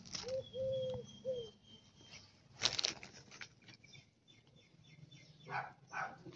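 Clear cellophane treat bags rustling and crinkling as they are handled, with one louder crinkle a little under three seconds in.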